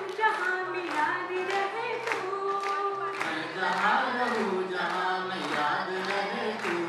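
Live song performance: a woman's singing voice with other voices joining, accompanied by a strummed acoustic guitar.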